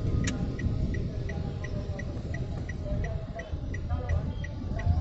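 A car's turn-signal indicator ticking steadily, about three ticks a second, starting just after a sharp click near the start. Underneath runs the low rumble of the car and the surrounding traffic, heard from inside the cabin.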